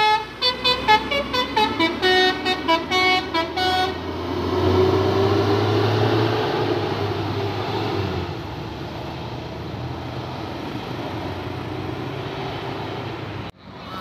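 Tour bus's telolet musical horn playing a quick stepping melody of separate notes, which stops about four seconds in. After it comes the steady low running of the bus engine as it pulls away, with road traffic noise.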